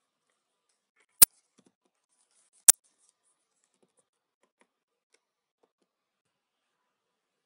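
Typing on a computer keyboard: two sharp, loud key clicks about a second and a half apart, then a few faint taps.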